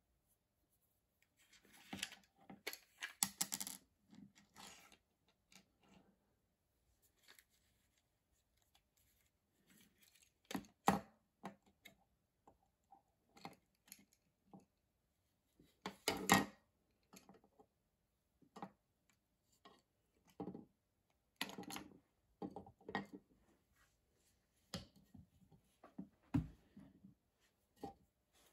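Plastic housing and small parts of a Stanley hot glue gun being handled and taken apart on a workbench: scattered clicks, knocks and rattles, with a few louder clusters of clatter.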